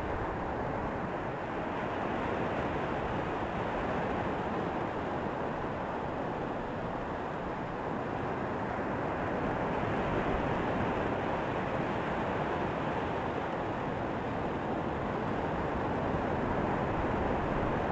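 Surf breaking and washing onto a sandy beach: a steady rushing noise that swells a little about halfway through.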